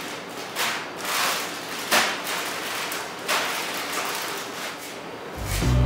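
Plastic instant-noodle packets crinkling and rustling as they are handled, shaken and stacked, with a couple of sharper knocks as packs are set down on the table. Upbeat music comes in near the end.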